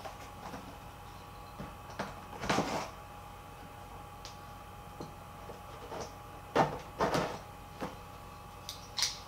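A blade cutting through the tape seals of a cardboard box: several short scratchy strokes spaced a few seconds apart.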